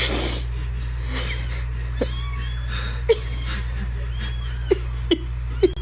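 Kittens mewing: many short, high-pitched cries in quick succession over a steady low hum.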